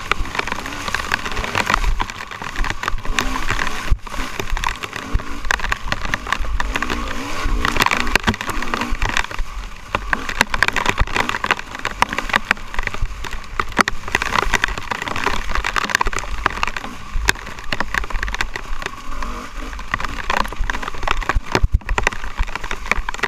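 Off-road dirt bike engine running under load on a muddy trail, its pitch rising and falling as the throttle is worked, with many sharp clicks and crackles throughout.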